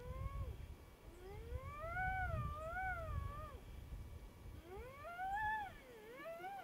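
Long, wavering animal cries that slide up and fall back in pitch, overlapping near the end, over a low wind rumble on the microphone.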